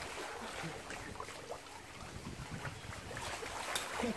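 Pool water sloshing and splashing around a person wrapped in bubble wrap, with a few sharper splashes in the last second.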